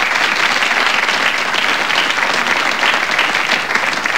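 Studio audience applauding, a dense and steady round of clapping from many hands.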